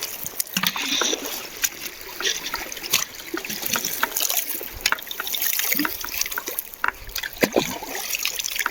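Shallow water trickling and splashing over stones, with irregular sharp clicks of stones knocking together.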